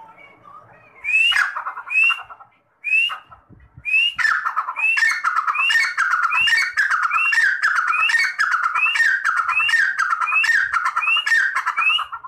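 Grey francolin (teetar) calling: a few separate rising whistled notes in the first four seconds, then a loud unbroken run of repeated rising calls, about one and a half a second, that stops suddenly at the end.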